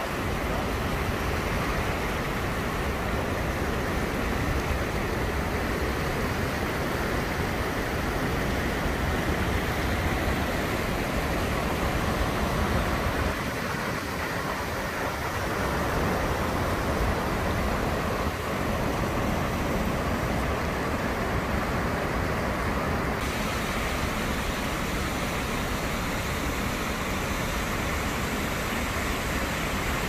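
Steady rushing of the Kicking Horse River pouring through the rock channel at Natural Bridge, a loud, even roar of fast water.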